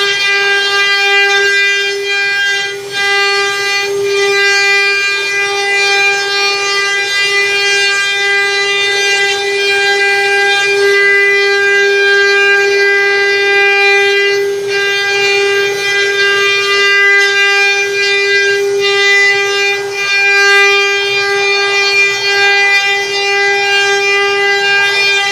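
Spindles of a multi-head CNC wood router whining at a steady high pitch while carving floral relief into wooden panels, over a hiss from the cutting, with a few brief dips.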